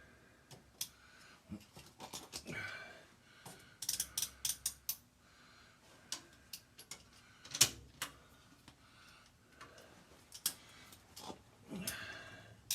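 Small metallic clicks and taps as snap-ring pliers fitted with homemade points spread a Cat 60 piston ring and work it into its groove on the piston. The clicks are scattered, with a quick run of them about four seconds in and a sharper click a little past halfway.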